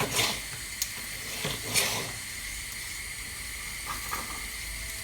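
Onion frying in a pan: a steady, high sizzle, with a few light taps in the first two seconds.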